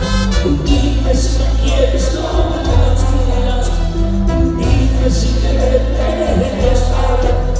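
Live band music with a male lead singer, heavy bass and drums with cymbals, heard close to the stage.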